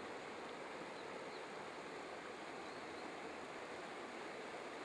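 Faint, steady rush of the Yellowstone River's white water far below in the canyon, an even noise that never changes.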